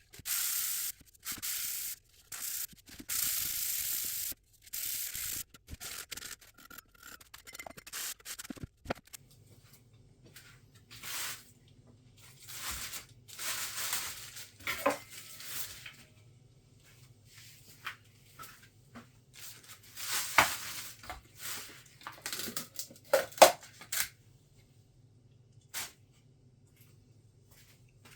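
A quick series of short hissing bursts, then intermittent rubbing and scraping of hand work, with a faint steady low hum setting in about nine seconds in.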